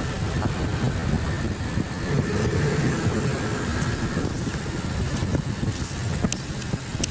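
A car moving slowly on asphalt: a steady low rumble of engine and tyre noise, with two faint clicks near the end.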